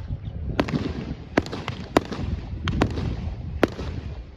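Fireworks bursting overhead: about seven sharp bangs at uneven intervals, a few in quick pairs, some ringing on briefly, over a continuous low rumble.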